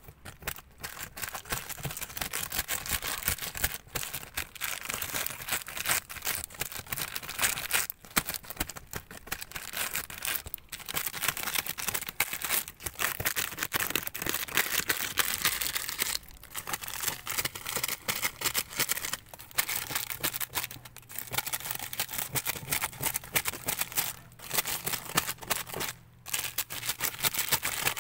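Plastic bags of oyster mushroom baglogs crinkling and rustling while the substrate surfaces are scraped clean of blackened, dried parts; near-continuous, with a few short pauses.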